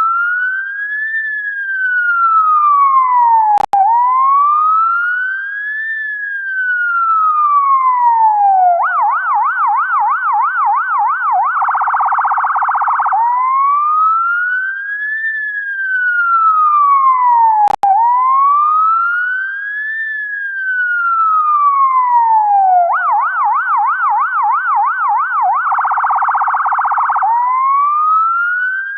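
UK ambulance siren cycling through its tones twice. Each cycle has two slow rising-and-falling wails, then a fast yelp warbling about four times a second, then a short harsh blast before the wail starts again. A split-second gap cuts through the wail twice.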